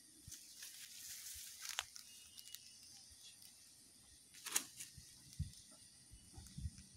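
Faint rustling and crackling of dry leaf litter and twigs underfoot, with one sharp snap about four and a half seconds in and a few soft thumps near the end.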